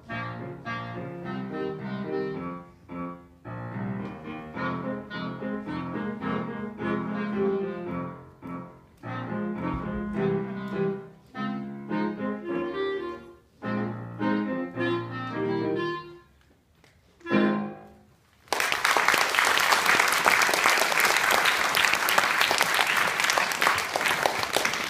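Clarinet and piano playing a showpiece in short, clipped phrases with brief gaps, closing with a single sharp final note after a short pause. About a second later, audience applause breaks out and continues.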